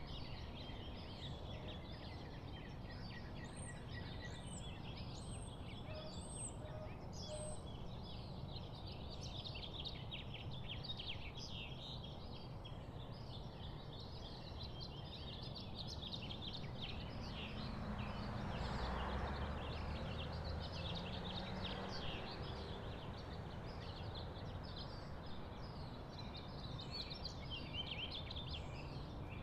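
Many small birds singing at once in a morning chorus of dense, overlapping chirps, with a run of five high whistled notes a few seconds in. Under it a steady low rumble swells for a few seconds near the middle.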